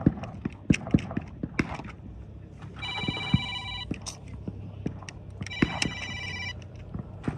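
A mobile phone ringtone rings twice, each ring about a second long, for an incoming call. A run of sharp clicks comes first.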